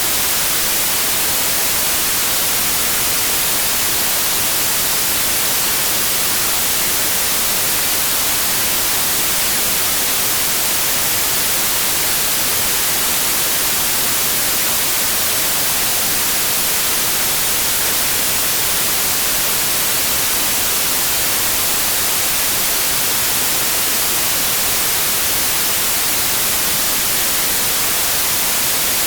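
Steady white noise: an even, unbroken hiss with no tone or rhythm in it, strongest in the treble.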